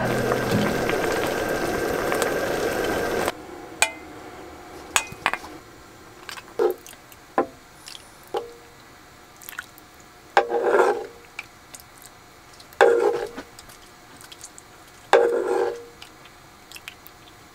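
Oxtail broth ladled with a wooden ladle from a wide pan into a small pot: three pours of liquid, with light knocks of the ladle against the cookware between them. A loud steady rushing noise runs for the first three seconds and cuts off suddenly.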